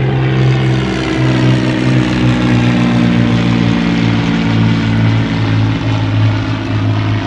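A steady engine drone: a low hum with several overtones, held throughout and drifting slightly in pitch.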